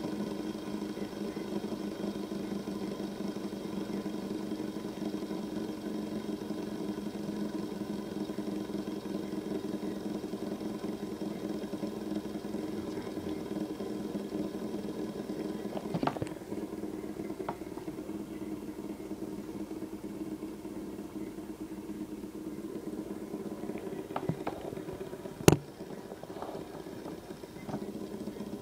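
Fidget spinner spinning on a wooden tabletop with a steady whirring hum. A few light taps come through it, and one sharp click near the end is the loudest sound.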